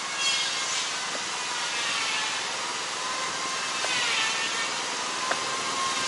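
A construction power tool, a motor saw, running with a whine that rises and falls in pitch over a steady hiss of rushing water.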